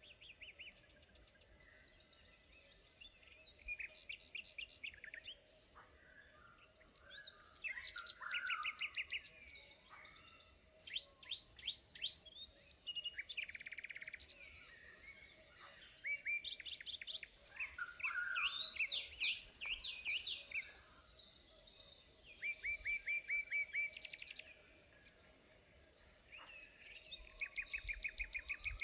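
Several songbirds calling and singing at once, overlapping: rapid trills of evenly repeated notes and short down-slurred whistles, coming in bouts with brief gaps. A faint steady hum runs underneath.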